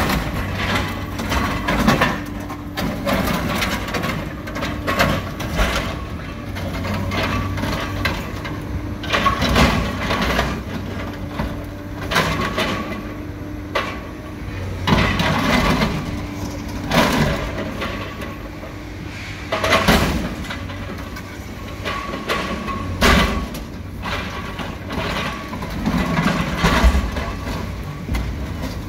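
Diesel engine of a scrap-yard material handler running steadily while its grapple crushes and tears into the body of an armored truck. Loud crunches and bangs of metal come every one to three seconds.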